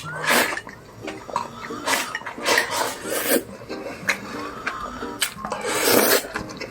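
Kitchen utensils clattering against a pot or dishes in a run of sharp clinks and knocks, with a louder noisy rush about six seconds in.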